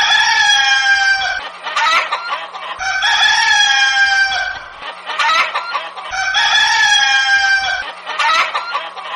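Rooster crowing three times, about three seconds apart, each crow about a second and a half long, with short clucking between the crows.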